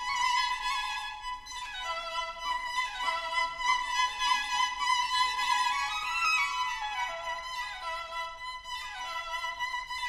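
Background music: a violin playing a melody of long held notes that slide from one pitch to the next.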